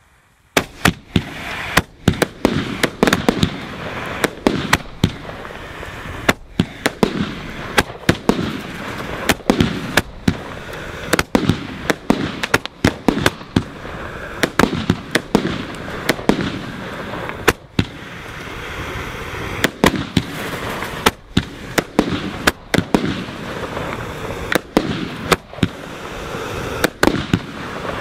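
Celtic Fireworks 'Midas Touch' 1.3G firework cake, 25 shots of 25 mm calibre, firing. It starts suddenly about half a second in, then keeps up a rapid series of sharp launch reports and aerial bursts, roughly one a second.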